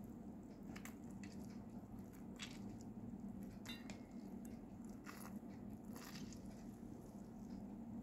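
A cut lime squeezed by hand over a steel bowl: faint squishing with a few small, scattered clicks, over a low steady hum.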